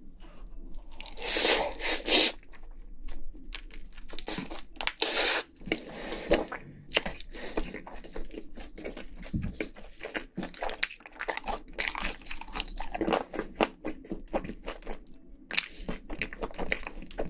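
Crunching bites into a crispy, sauce-coated Korean yangnyeom fried chicken piece, loudest about a second in and again about five seconds in, followed by steady crunchy chewing of the crackly skin.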